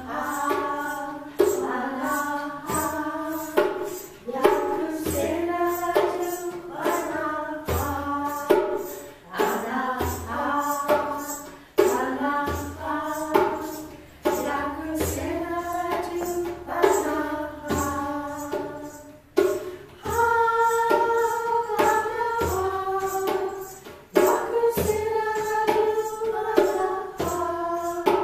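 Women's voices singing a slow melody together, over a steady percussion beat.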